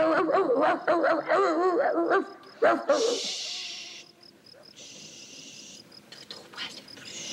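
A dog howling in a wavering, rising and falling pitch for about the first two seconds, with one more short cry a little later. Then two long hushing "shh" sounds and a short one near the end, telling it to be quiet.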